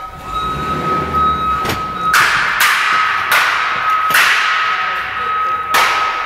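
Steel pallet racking collapsing, a run of about six loud metal crashes one after another, each ringing on, with a low rumble in the first second or so. A steady high-pitched tone sounds underneath.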